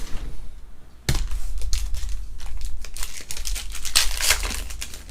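Plastic wrapping on trading card packaging being torn open and crinkled. It starts about a second in as a run of irregular crackles and dies down near the end.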